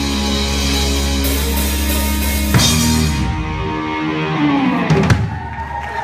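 Live rock band, drums and guitar, holding a sustained closing chord, heard through the stage monitors. There is a big hit about halfway, then the sound thins and rings down, with a sliding drop in pitch and a last hit near the end.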